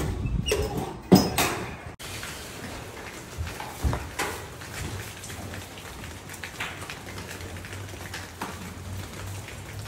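Drywall finishing work: a few sharp knocks of a pole-mounted finishing tool against the ceiling in the first two seconds, then a drywall knife scraping joint compound against a mud pan and the ceiling, a soft crackling scrape dotted with small taps and clicks.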